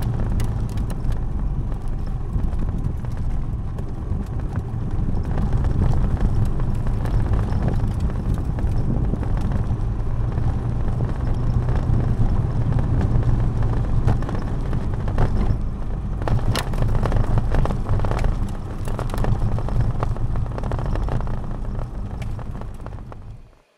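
Scooter engine running steadily while riding over a rough gravel and dirt track, with scattered knocks and crunches from the bumpy surface. The sound cuts off suddenly near the end.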